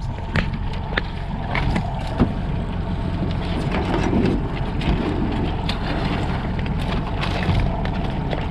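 Boat engine running steadily, a low even hum, with scattered light clicks and knocks of handling on deck.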